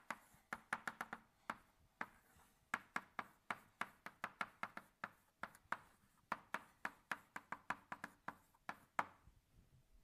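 Chalk writing on a blackboard: a quick, irregular run of sharp chalk taps, several a second, as formulas are written out.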